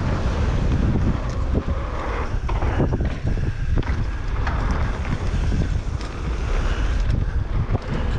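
Wind buffeting the camera microphone on a Transition TR11 downhill mountain bike riding fast down a trail, with tyre rumble over dirt and scattered clacks and rattles from the bike over bumps.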